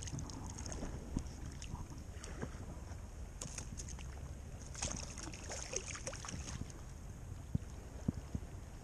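Shallow bay water lapping and sloshing around a wading angler, heard from just above the surface, with a steady low wind rumble on the microphone. Scattered small splashes and drips crackle through it.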